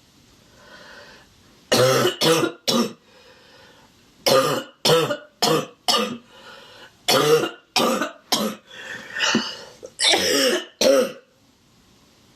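A woman's barking cough in a fit of about a dozen harsh coughs, coming in four quick clusters with breaths drawn in between. She is congested with a cough that she puts down to dust in the air.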